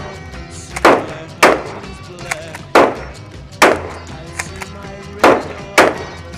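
Six loud, sharp gunshots at irregular intervals, over background rock music.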